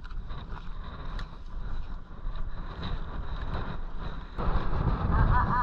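Wind buffeting a handheld camera's microphone on a walk along a sandy path, with faint scattered ticks of footsteps. A stronger gust comes about four and a half seconds in, and near the end there is a rapid run of short squeaky chirps.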